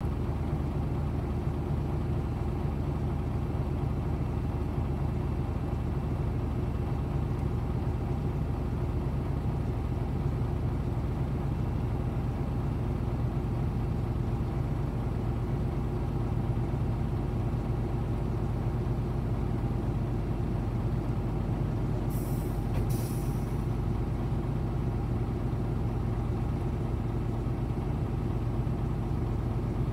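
Hino Blue Ribbon bus diesel engine idling steadily, with no change in pitch. Two short hisses of compressed air come about 22 and 23 seconds in.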